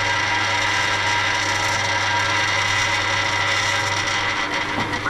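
A benchtop drill press running steadily, a constant motor hum with a high whine over it.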